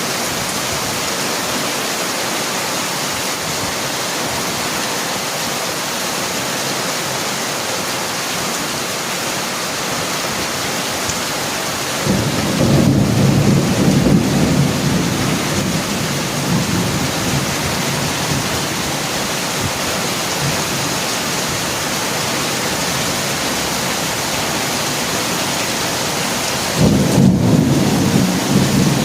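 Heavy rain pouring steadily, with a low rumble of thunder swelling up about twelve seconds in and dying away over several seconds. A second thunder rumble starts near the end.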